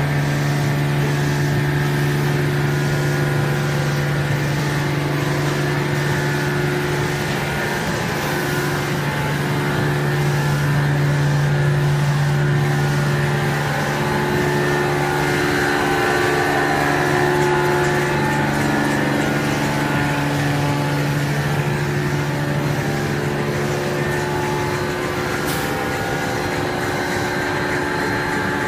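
V-fold tissue folding machine running at production speed: a steady mechanical hum with several held motor tones, the strongest low one dropping out about three seconds before the end.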